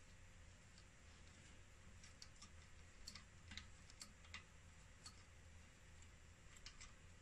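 Faint, irregular small clicks and taps of fingers working a small circuit board and its wire connectors loose inside an opened Concord 500VA inverter, over a faint low hum.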